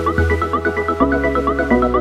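Electronic background music: a quick, evenly repeating synth figure over sustained bass notes that change about once a second.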